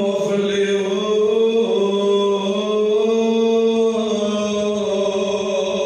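A man chanting a melodic religious recitation in long held notes that rise and fall slowly, without pauses.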